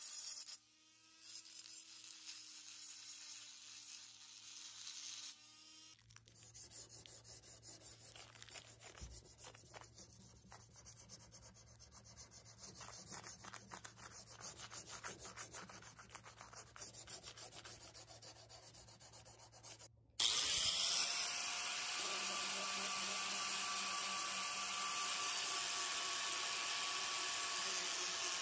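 Rust being worked off a steel knife blade: for the first few seconds a buzzing hum, then quiet, irregular hand rubbing and sanding strokes, then, after a cut about twenty seconds in, a power tool running steadily with a high whine.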